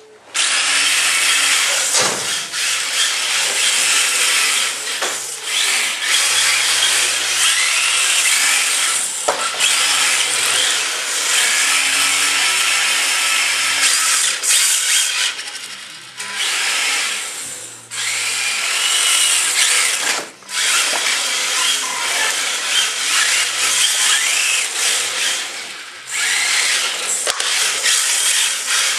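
Electric motors of two radio-controlled touring cars whining at high revs, easing off and spinning up again several times as the cars are drifted, with tyres scrubbing on pavement. The motors are 20-turn brushed motors driving Tamiya TT-01E chassis.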